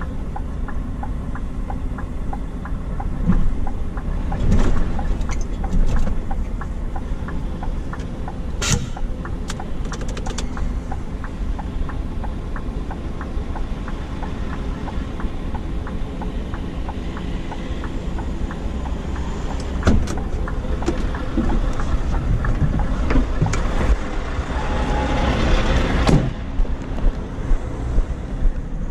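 Scania truck's diesel engine running at low speed, a steady low rumble heard in the cab, with occasional knocks and rattles from the cab and trailer over the snowy road.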